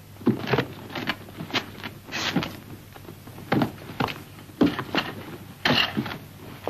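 Cardboard cartons being handled and shifted: an irregular run of dull thuds, about one or two a second, with a few short scraping slides.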